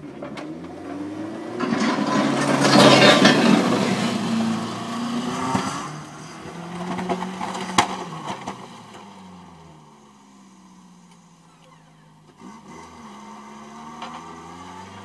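Pickup truck engine revving hard with a loud rush of noise while the truck pushes up a snowbank, easing off about halfway through to a lower, quieter running, then revving up again near the end.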